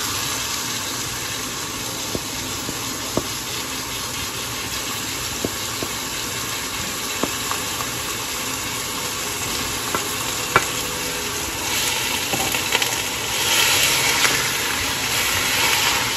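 Ground turkey and beef sizzling as the meat goes into hot oil in a stainless steel wok: a steady frying hiss with a few sharp clicks of the wooden spatula against the bowl and pan. The sizzle gets louder and rougher near the end as the meat is stirred.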